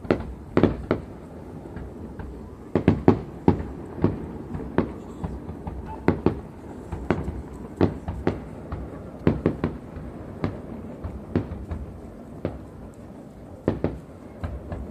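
Aerial fireworks bursting: a long run of sharp bangs at irregular intervals, several coming in quick clusters of two or three.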